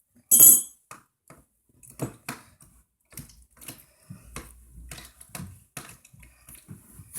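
Spoon and container clattering as slime is handled: one loud knock about half a second in, then scattered lighter clicks and taps.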